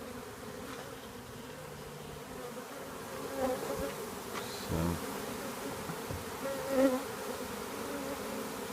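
A swarm of honeybees buzzing steadily as a low, even hum.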